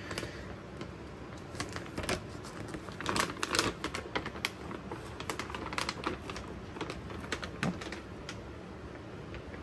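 A stiff cat food bag crinkling and rustling as it is handled and opened, in irregular clusters of short crackles.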